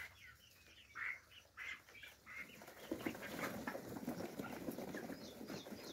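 A flock of young chickens clucking and chirping in short calls. About three seconds in, a dense scuffling of many feet starts up and carries on as the flock runs across bare dirt, with the calls continuing over it.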